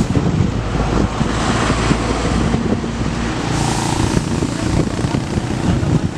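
Boeing 747 jet engines running with a loud, steady rush and low rumble, with wind buffeting the microphone.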